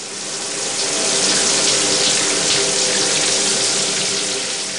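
Water running from a tap into a sink: a steady, dense rush that swells up over the first second and holds.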